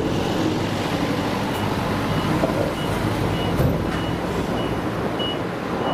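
A vehicle's reversing alarm giving short, high beeps about every half second over the low rumble of engines.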